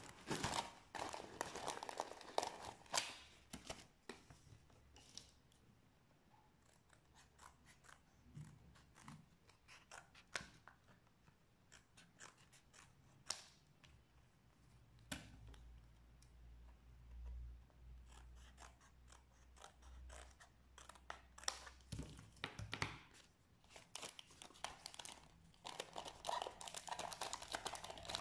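Scissors snipping around a thin cardboard circle: a scatter of small, quiet snips, with the card rustling as it is turned in the hand.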